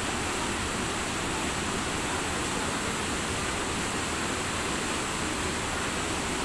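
Water rushing and cascading over rocks at a waterfall and its stream: a steady, even roar of white water.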